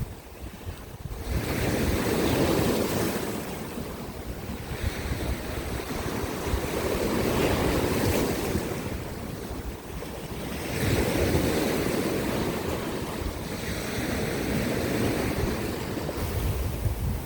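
Sea waves breaking and washing over coastal rocks, each surge swelling and ebbing about every four seconds, with wind rumbling on the microphone.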